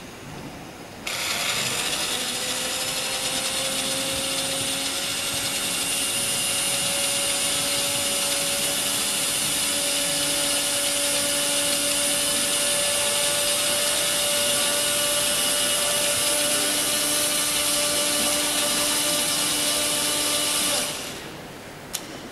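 Countertop blender running, grinding tea leaves into sesame oil to make a tea oil. The motor switches on suddenly about a second in, its hum rising slightly in pitch over the first few seconds as it spins up, then runs steadily for about twenty seconds before cutting off shortly before the end.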